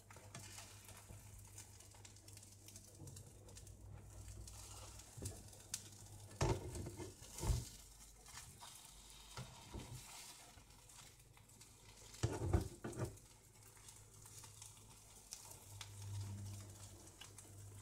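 Omelette frying quietly in an oiled pan, with a utensil scraping and knocking against the pan a few times as the omelette is lifted and folded in half.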